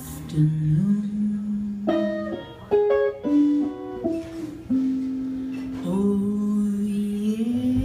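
Live jazz-pop band playing: plucked guitar notes and bass, with a woman's voice singing.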